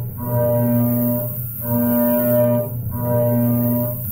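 Background music of long held low notes in a steady pattern, each note lasting about a second and a half before the next.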